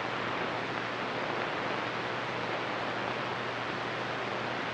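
CB radio receiver hissing with steady static (band noise) on channel 28 between skip transmissions, with no signal coming through.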